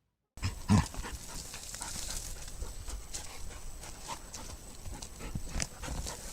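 A dog panting and moving about, with scattered clicks and a loud knock just under a second in.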